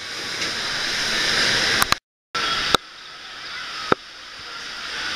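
Water running down a fiberglass water slide, a steady rushing hiss that grows louder within each shot. Sharp clicks and a brief dropout just after two seconds break it where the footage is cut.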